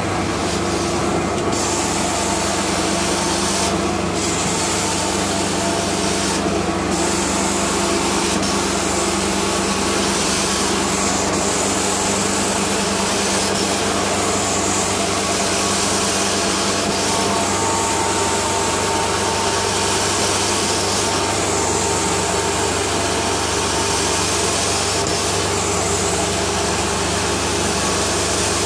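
Truck-mounted carpet extractor running through a Mytee 8300EZ two-jet wand as it is drawn across carpet: a steady rush of vacuum airflow and spray hiss over the low hum of the machine. The hiss briefly drops out a few times in the first seven seconds, then brightens and fades every few seconds with the strokes of the wand.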